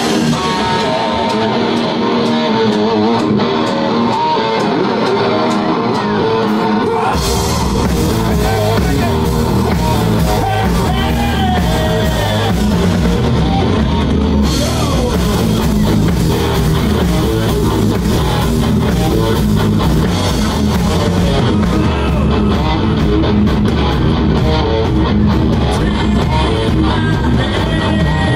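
Live rock band playing: a male lead singer over electric guitars and a drum kit. About seven seconds in, the drums and low end come in fully and the sound fills out.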